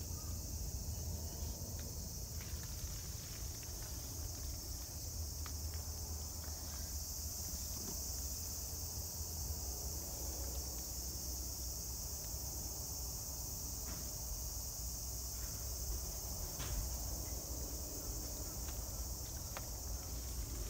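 Steady high-pitched chorus of summer insects, with a low steady rumble underneath and a few faint ticks.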